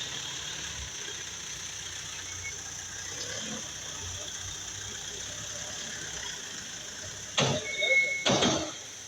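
Mitsubishi Triton 4x4 pickup's driveline running with a steady low hum and a high whine, then two loud clunks near the end with a short squeak between them: the noise the owner places in the four-wheel-drive system.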